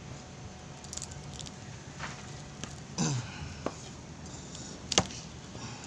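A few light clicks and taps from hands handling cooking ingredients, the sharpest about five seconds in, over a steady low hum; a short vocal sound about three seconds in.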